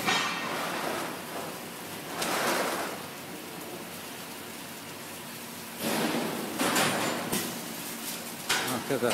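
Paint bucket heat transfer machine running a print cycle on a plastic bucket: hissing, sliding mechanical noise swells up about two seconds in and again around six to seven seconds, with a few clunks near the end, over steady background noise.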